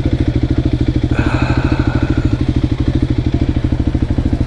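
Voge 300 Rally's single-cylinder engine idling with a fast, even beat.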